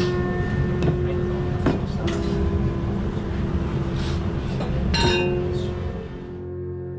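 Ramen shop kitchen clatter: bowls and utensils clinking with a few sharp knocks over a steady hum. Near the end the clatter fades and soft background music comes in.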